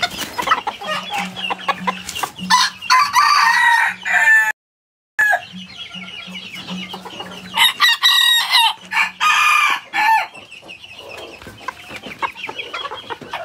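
Young roosters crowing in strained, scratchy bursts between clucks. The sound cuts out completely for about half a second near the middle.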